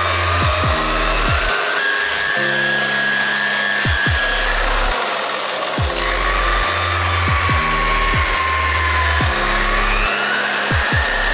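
Electric rotary polisher running with a foam pad pressed on a fiberglass fender, its motor whine drifting up and down as the load on the pad changes. Lofi background music with a steady kick and bass plays underneath.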